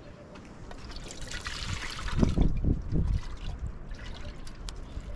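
Water being poured from a cooking pot, trickling and splashing, with a few low thumps about two seconds in.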